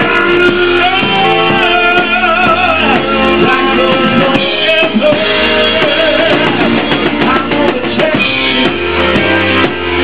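Live band playing: electric guitar, electric keyboard and drums, with steady bass and a run of long held notes that waver in pitch, and no words sung.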